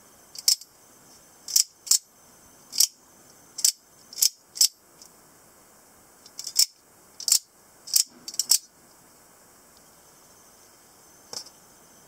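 Out-the-front automatic spring knife repeatedly snapping its blade out and back in: a dozen or so sharp metallic clicks, some in quick pairs, over the first eight or nine seconds, then one more click near the end.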